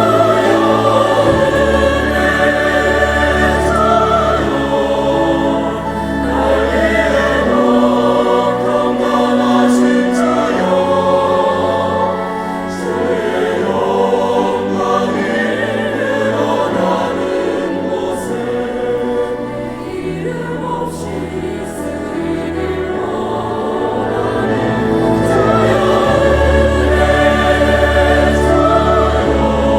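Church choir singing an anthem in full harmony over accompaniment, with long held low bass notes underneath.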